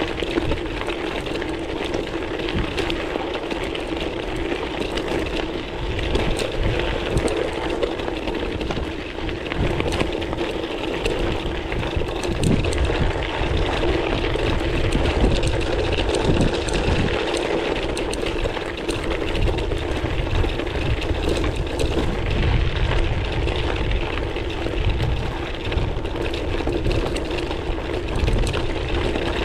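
Gravel bike riding over a loose gravel track: continuous tyre crunch and rattling, with a steady hum beneath and low wind rumble on the handlebar camera's microphone.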